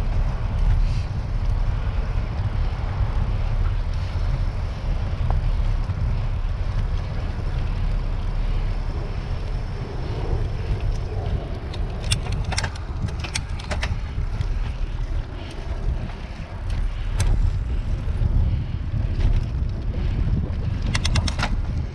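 Wind buffeting the microphone of a camera on a moving bicycle: a loud, unsteady low rumble. A few sharp clicks come through from about halfway in, with a quick cluster near the end.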